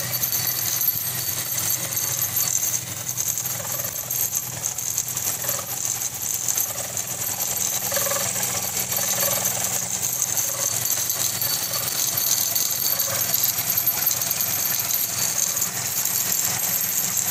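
Industrial double-needle chain-stitch sewing machine running steadily while it stitches a long snap-band strip: a fast, even mechanical rattle with a steady high whine over a low hum.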